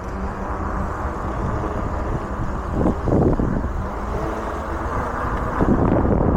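Wind rushing over the microphone, with road noise, while riding an e-bike in strong wind; it swells about three seconds in and again near the end.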